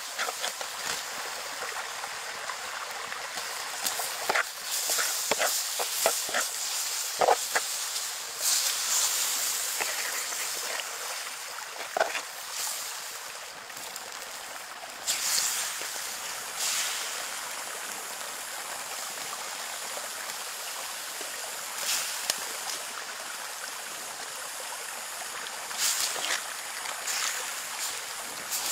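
Shallow water running over stones, a steady hiss broken by scattered small splashes and clicks.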